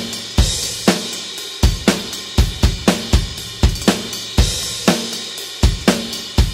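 Rock drum kit playing a steady beat at 120 beats per minute: kick and snare hits under hi-hat, with a cymbal crash about half a second in and again a little past four seconds.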